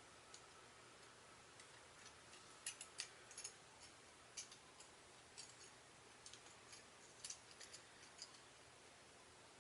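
Faint, irregular clicks of a plastic Transformers action figure's parts and joints being handled and adjusted, over near-silent room tone. The clicks start about two and a half seconds in and die away around eight seconds.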